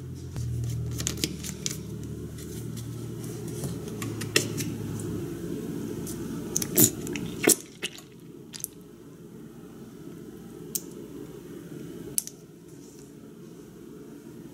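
Plastic squeeze bottle of Kraft coleslaw dressing handled with sharp clicks and knocks, then squeezed out over shredded cabbage with soft squishing squirts. A low hum underneath stops about halfway through.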